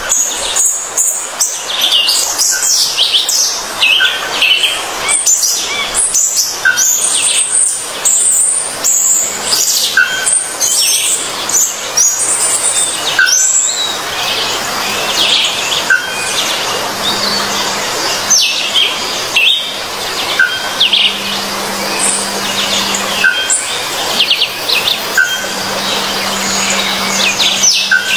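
Many small birds chirping and twittering without pause, their high, quick calls overlapping.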